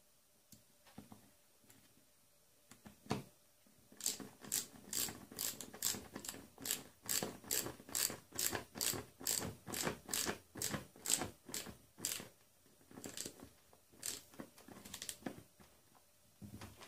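Ratcheting screwdriver handle clicking as it is worked back and forth. A steady run of sharp clicks, about two to three a second, starts about four seconds in and thins to a few scattered clicks near the end.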